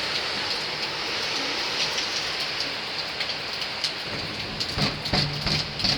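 Heavy hurricane rain and wind hissing steadily, with louder, sharper spatters and gusts in the last couple of seconds.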